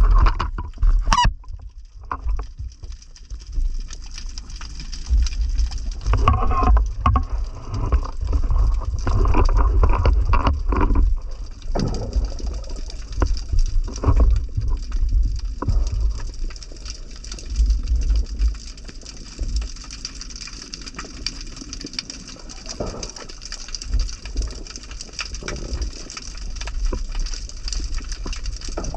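Muffled underwater sound picked up by a camera in a waterproof housing: a low rumble of moving water with bubbling and knocks, and a run of short pitched tones about six to eleven seconds in.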